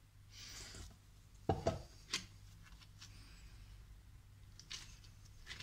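Faint handling noises as a glove is pulled off and dough is handled at a steel bowl. A soft rustle comes first, then a knock about a second and a half in and a click just after, with a few light ticks near the end.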